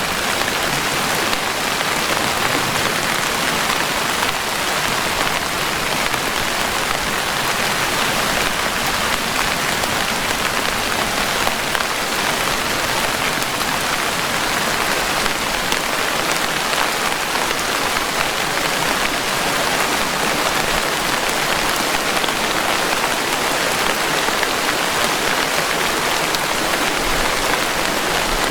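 Steady rain falling, an even hiss of many drops that holds constant throughout, with no thunder.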